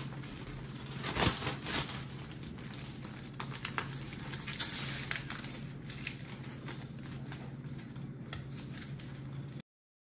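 A plastic zip-top bag crinkling and rustling as dry chicken batter mix is dumped into it from its paper bag, with scattered crackles. The sound cuts off just before the end.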